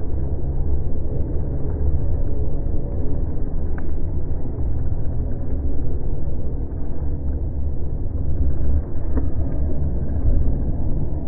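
Steady low wind rumble buffeting the microphone of an action camera mounted on a moving road bike, with a couple of faint clicks.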